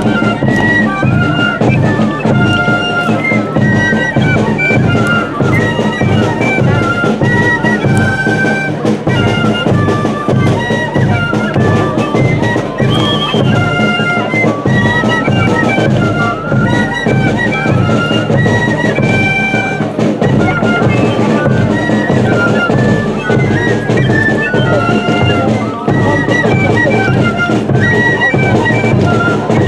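K'ajelos dance music: traditional Andean wind instruments playing a stepping melody of short held notes over a steady drum beat.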